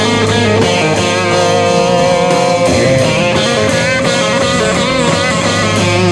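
Grunge rock music with guitars, led by one long held note that slowly rises slightly in pitch.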